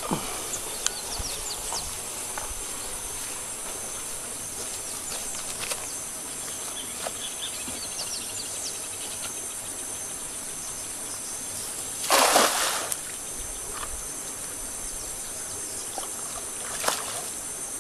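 Steady insect drone with short bird chirps; about twelve seconds in, a brief loud splash as a cast net lands on the pond.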